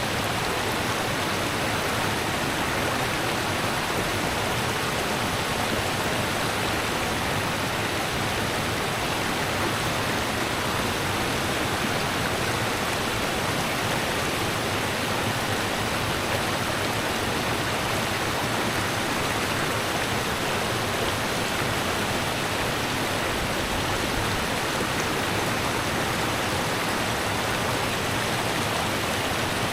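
Rushing river water: a steady, even rush with no distinct splashes or changes.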